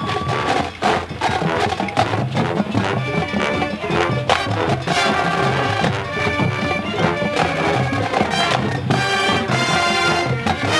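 High school marching band playing brass and percussion together. Drum hits are prominent in the first few seconds, then sustained brass chords join in from about halfway through.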